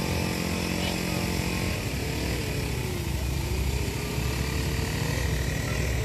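A small engine runs steadily in the background. Its pitch sags about three seconds in and then climbs back up.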